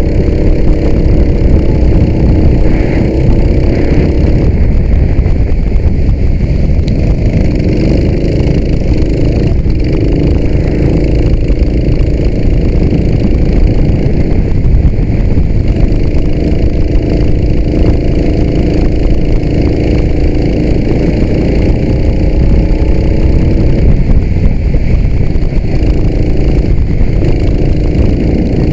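Go-kart engine heard onboard, its pitch climbing steadily as the kart accelerates and dropping sharply several times as it slows for corners, over a loud low rumble.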